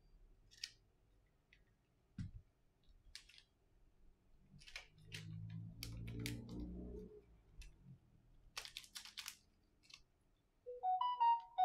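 Light clicks and taps of hands handling a Samsung Galaxy A70 and a plastic parts bag. About five seconds in the phone gives a low buzz lasting about two seconds, its vibration motor going off as it powers up after the repair. Near the end it plays a short run of electronic tones.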